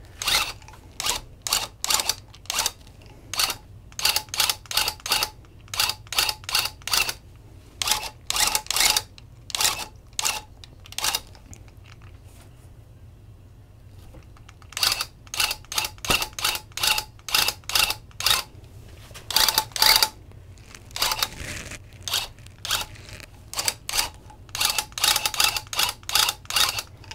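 Electric loop pile tufting gun run in many short bursts, two or three a second, its needle punching yarn loops into the backing cloth. The bursts stop for about three seconds near the middle.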